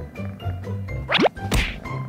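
Light, bouncy background music, cut into about a second in by a quick steeply falling swoop and, a moment later, a sharp cartoon whack sound effect.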